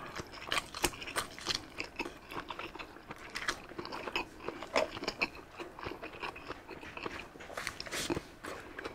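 A person biting into and chewing sausage, with many short, irregular clicks and wet mouth sounds.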